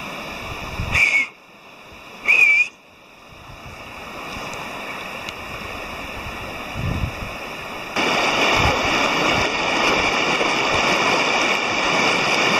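Fast, shallow river rushing over stones, with two short high whistles, about a second in and about two and a half seconds in. The rushing water grows louder about eight seconds in.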